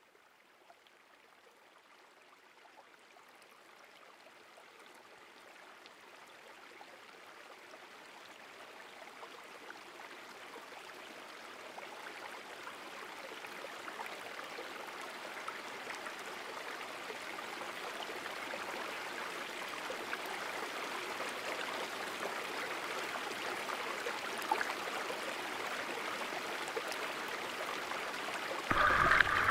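Creek water flowing, a steady rushing that fades in gradually and grows louder, with a brief louder burst near the end.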